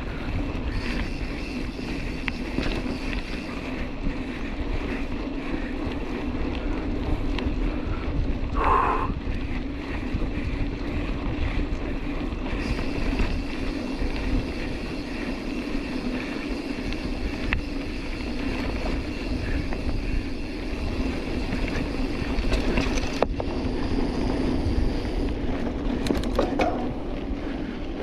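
Mountain bike ridden over a rough dirt trail: steady rumble and rattle from the tyres and bike, with wind on the action camera's microphone.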